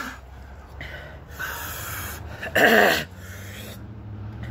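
A man breathing hard with a long breathy hiss of air, then a short loud groan that falls in pitch about two and a half seconds in. He is reacting to the burn of a Carolina Reaper chili.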